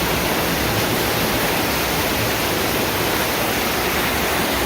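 Floodwater rushing and pouring through a house and yard: a loud, steady roar of fast-moving water.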